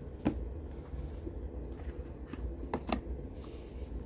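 A few short, faint clicks or taps over a steady low hum: one near the start and two close together about three seconds in.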